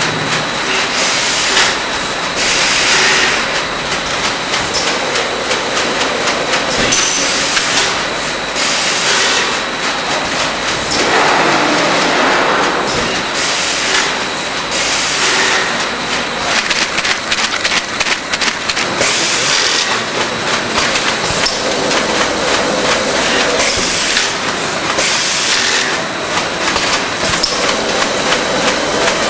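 Robotic cartoning machine running: continuous mechanical clatter and rapid clicking from the conveyors and pick-and-place heads, with short hisses of air every few seconds and a faint steady high whine underneath.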